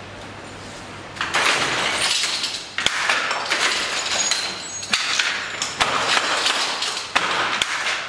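Hand jacquard loom weaving silk velvet: the harness and heddles rattle and clatter in repeated spells a second or two long, with sharp knocks between them, starting about a second in.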